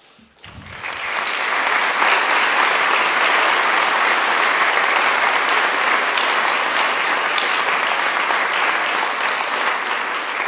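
Assembly audience applauding: many people clapping together, building up over the first second or so and then holding steady.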